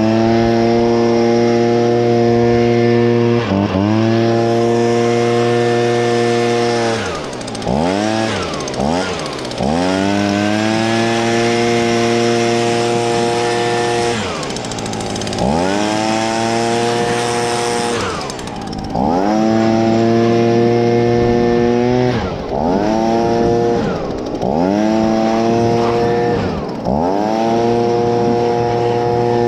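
Stihl BG55 leaf blower's 27cc two-stroke engine running at high speed while warming up, the throttle let off and squeezed again about a dozen times so the pitch drops and climbs back each time.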